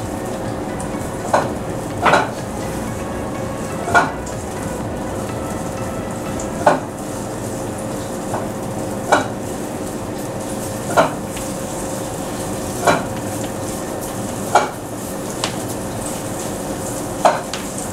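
Green chillies and capsicum strips stir-frying in a non-stick kadai with a steady sizzle. A spatula knocks and scrapes against the pan about every two seconds as the vegetables are turned.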